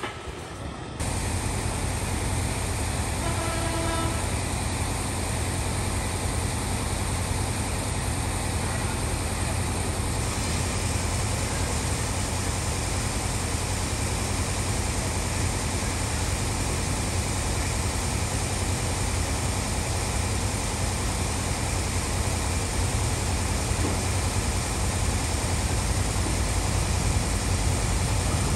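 Diesel train engine running with a steady low rumble and hiss, starting abruptly about a second in and growing slightly louder near the end. A short pitched tone sounds about three seconds in.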